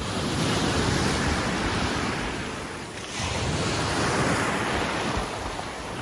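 Small sea waves breaking and washing up a pebble beach in two surges, the second building about three seconds in.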